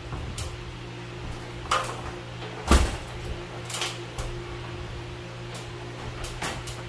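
A handful of scattered knocks and clicks over a steady low hum, the loudest a deep thump a little before the middle.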